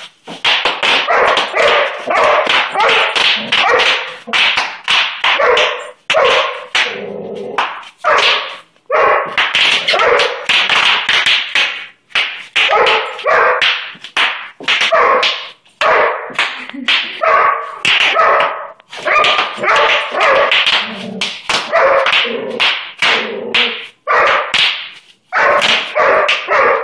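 A large black dog barking over and over in quick runs with only brief pauses, reacting to bubble wrap being popped under bare feet.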